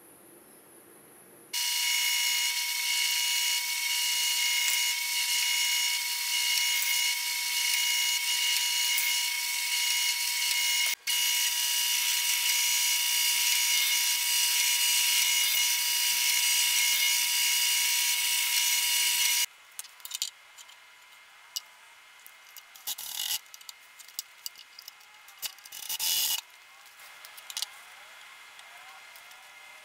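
Drill press running and boring into a wooden board: a steady motor whine with cutting noise, starting a second or two in, briefly broken about ten seconds in, and stopping before the end. Afterwards scattered light clicks and knocks.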